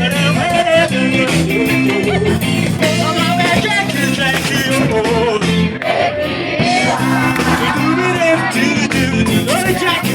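Reggae song with guitar, bass and singing.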